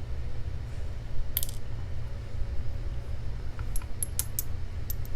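Tiny padlock pins and small metal lock parts clinking against a hard surface. There is one bright, ringing clink about a second and a half in, then a quick run of lighter clicks near the end, over a steady low rumble.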